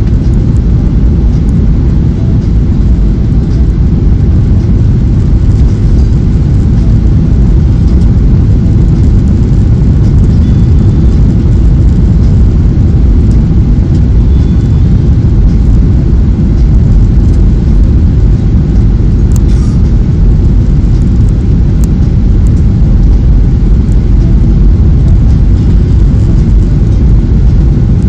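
Boeing 737-800 cabin noise on final approach, heard from inside at a window seat: a steady, loud, low rumble and rush from its CFM56-7B engines and from air flowing over the wing with the flaps extended.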